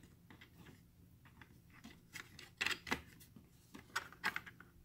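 Plastic clicking and scraping as the two halves of a 3D-printed plastic enclosure are pressed and worked together by hand. The lid does not seat properly. The loudest clicks come in clusters between about two and three seconds in and again around four seconds in.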